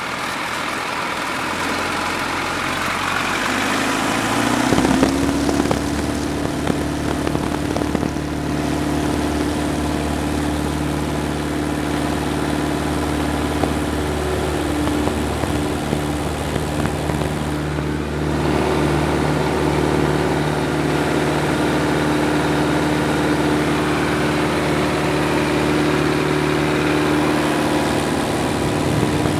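Piper Cub's engine and propeller, heard from inside the cabin, rising in pitch and loudness about four seconds in, then running steady at high power through the takeoff roll and climb-out.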